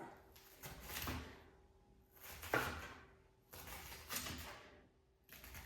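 Knife cutting onions on a cutting board: four slow, separate strokes, each a short swish with a soft knock.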